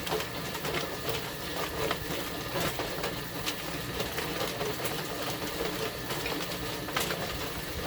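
Chicken plucker running with a steady motor hum, a scalded bird tumbling inside and knocking irregularly against it while water is sprayed on to wash the loosened feathers off.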